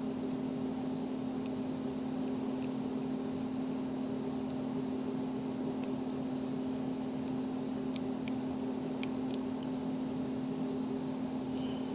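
A steady low hum from a nearby motor or appliance, with a few faint, very short metallic ticks from a lock pick and tension wrench working the pins inside a padlock's keyway.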